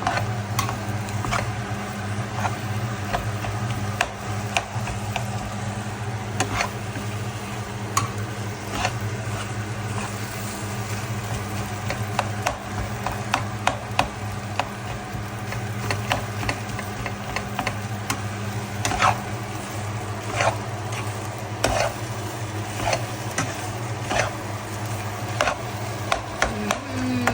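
Kottu being stir-fried in a pan: a utensil knocks and scrapes against the pan in irregular strokes, with food sizzling, over a steady low hum.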